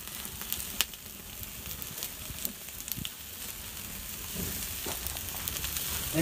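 Bamboo-skewered meat sizzling over glowing embers, a steady hiss with a few sharp crackling pops from the fire.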